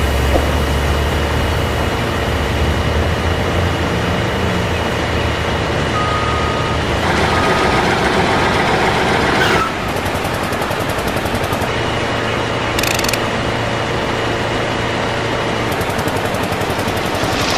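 Continuous heavy vehicle and machinery engine noise with a few short beeps. Its character changes abruptly several times.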